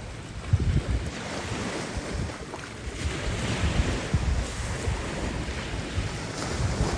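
Small waves washing against shoreline rocks, their hiss swelling and fading, with gusty wind buffeting the microphone.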